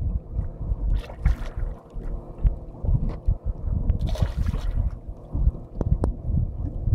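Wind buffeting the microphone, with a steady faint hum underneath and two brief splashes, about a second in and about four seconds in, as a hooked golden dorado thrashes at the water's surface.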